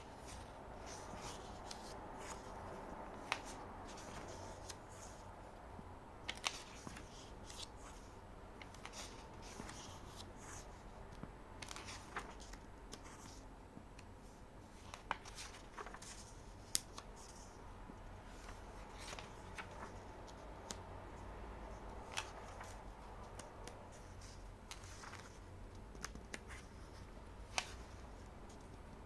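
Pages of a paperback workbook being handled and turned: soft paper rustling with scattered sharp clicks and taps, over a faint low hum.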